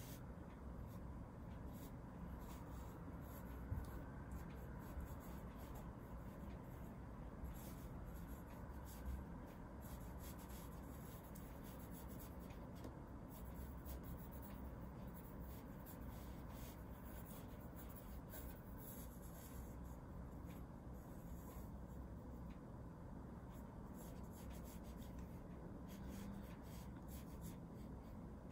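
Graphite pencil scratching across paper in many short, faint strokes as a sketch is drawn.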